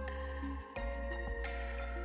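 Background music with a steady beat: sustained bass and held notes, with the bass dropping out briefly just before a second in.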